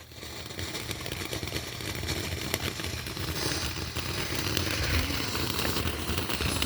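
A ground firework burning with a continuous hiss and dense crackling, building up over the first couple of seconds and then holding steady.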